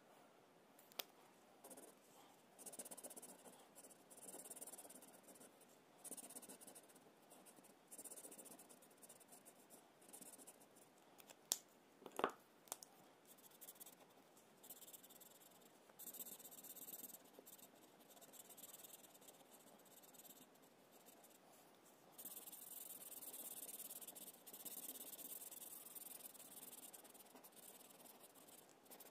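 Felt-tip marker rubbing on paper as an area of the drawing is coloured in, a faint scratchy hiss that comes in spells. Two sharp clicks come about twelve seconds in.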